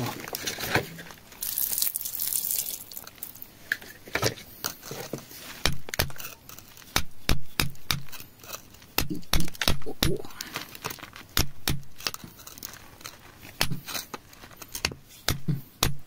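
Metal digging tool picking and scraping at crumbly, gravelly soil: a run of sharp, irregular clicks and gritty crunches as the grit breaks away.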